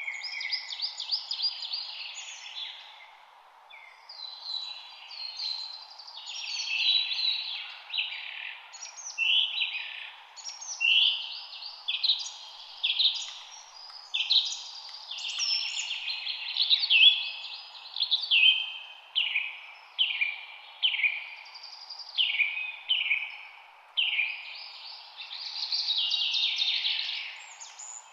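Songbirds chirping and singing in a dense run of short, overlapping calls and trills, over a faint steady background noise.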